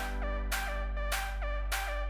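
Electronic background music with a steady beat and a synth melody stepping up and down in pitch.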